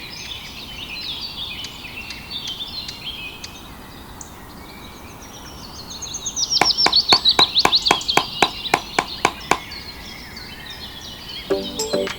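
Songbirds chirping, then about six seconds in a loud run of quick, falling notes, around six a second for about three seconds.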